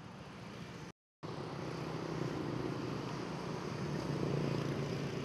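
Steady road-traffic noise, a mix of passing vehicle engines and tyre hiss, which drops out completely for a moment about a second in.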